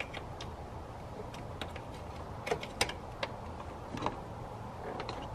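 A few light clicks and taps from hands handling a battery charger and its clamp cables at a car battery, over a low steady background hum.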